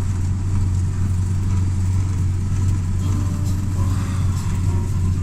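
Car engine and road noise heard from inside the cabin, a steady low drone. Faint music from the car's stereo comes in about three seconds in.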